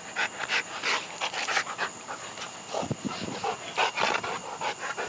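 A dog panting in quick, even breaths, about three a second.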